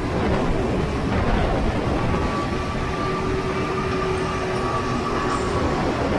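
Racing go-kart engine running, a dense steady rumble; a faint steady tone rides over it through the middle few seconds.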